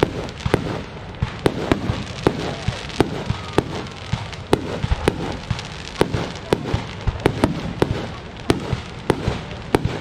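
Fireworks display: a dense run of sharp bangs, two or three a second, with continuous rumbling noise between them.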